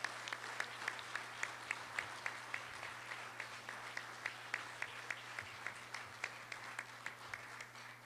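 Audience applauding, with one nearby clapper's claps standing out at about three a second; the applause fades near the end.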